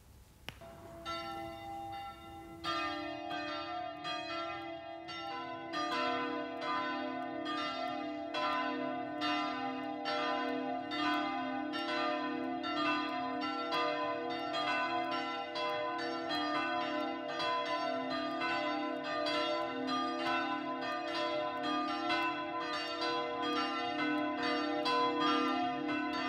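Church bells ringing: a single bell begins, more bells join within the first few seconds, and several bells then keep pealing together in a steady, tumbling sequence.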